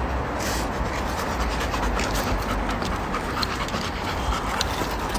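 Labrador retriever panting over a steady low background rumble.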